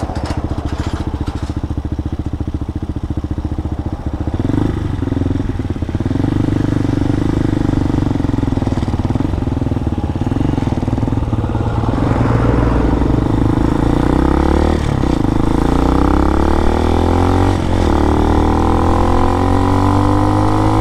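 Fuel-injected 250cc single-cylinder engine of an RPS Hawk DLX 250 dual-sport motorcycle, running a custom ECU tune. It idles, is revved briefly a few seconds in, then pulls away and accelerates up through the gears, its pitch climbing with a short dip at each of two gear changes.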